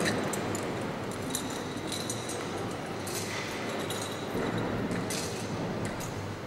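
Reverberant cathedral room sound: a steady low hum of a large congregation with scattered faint clicks and clinks.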